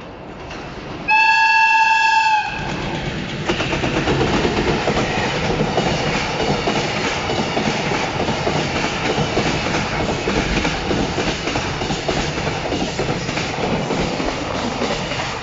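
A JR Freight EF210 electric locomotive sounds one short horn blast about a second in. A long train of container wagons then rushes past at high speed, with a rapid, steady clatter of wheels over the rail joints.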